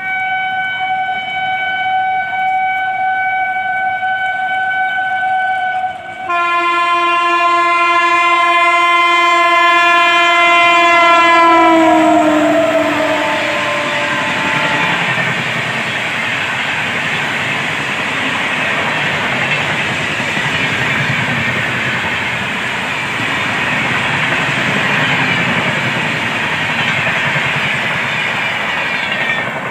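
Horn of an Indian Railways WAP-7 electric locomotive: a long high-pitched blast for about six seconds, then after a brief break a lower-pitched blast whose pitch drops at about twelve seconds as the locomotive passes. The passing train's coaches follow as a loud steady running noise that fades near the end.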